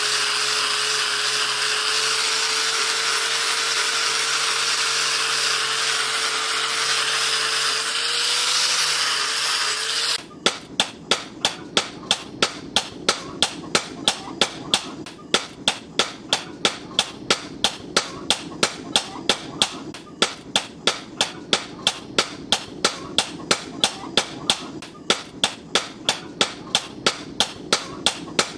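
Angle grinder with a cloth buffing wheel running steadily against the steel axe head, polishing it, with a single held whine; it stops abruptly about ten seconds in. After that comes a quieter, even series of sharp clicks, about two and a half a second.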